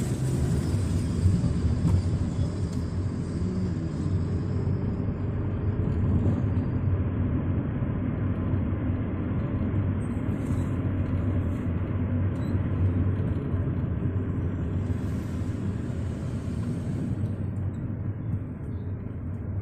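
Steady low rumble of a moving vehicle's engine and tyres on the road, heard from inside the cabin.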